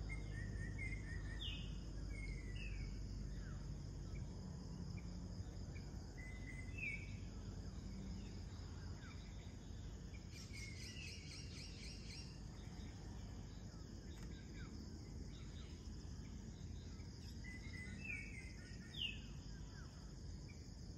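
Twilight insect chorus: crickets and other insects keep up a steady high-pitched drone, with scattered short bird chirps and a fast pulsing trill about halfway through, over a faint low rumble.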